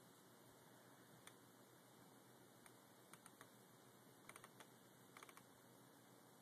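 Near silence with a few faint, short clicks in small scattered clusters.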